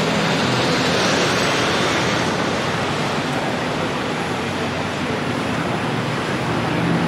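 Steady rush of busy city-street traffic from passing cars, buses and vans, swelling briefly about a second in.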